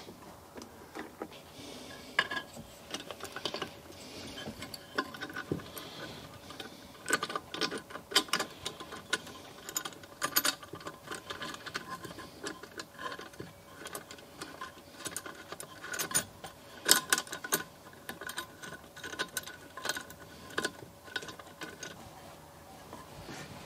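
Small metal engine parts clicking and clinking irregularly as they are handled and fitted together while a Briggs & Stratton lawn mower engine is reassembled.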